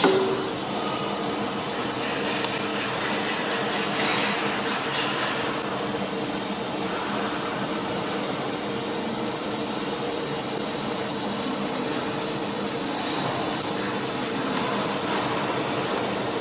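CNC router machine running a steady hiss and hum through an automatic tool change and tool-length measurement cycle, with a short sharp burst right at the start.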